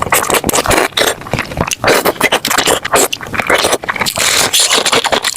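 Eating sounds close to the microphone: a rapid, irregular run of chewing and crunching.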